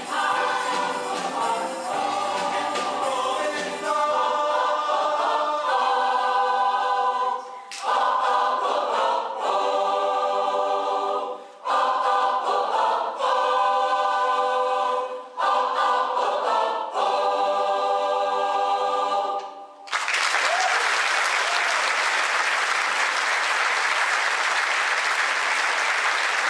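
A large mixed choir sings the closing phrases of a pop song in held chords with short breaks between phrases, the final chord cutting off about twenty seconds in. The audience then breaks into applause.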